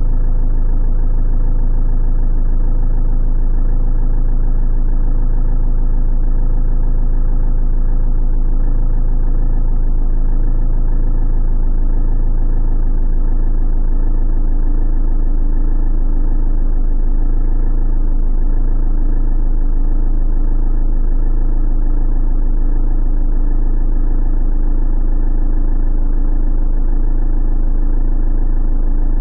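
Van engine idling steadily, heard from inside the cab as a constant low hum with no revving.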